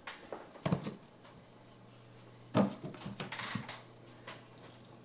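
A few scattered knocks and thumps with light rustling, the loudest thump about two and a half seconds in: a capuchin monkey scrambling about and handling objects on a wooden table.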